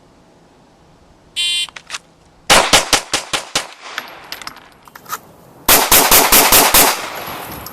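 A shot timer's start beep, then a pistol firing six rapid shots in about a second as the 6-round string is drawn and fired from the holster. A few seconds later comes another rapid string of about seven gunshots.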